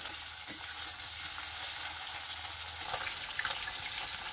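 Turmeric-coated koi fish sizzling steadily in hot oil in a metal kadai, with a few short scrapes and knocks of a metal spatula turning the pieces, most of them about three seconds in.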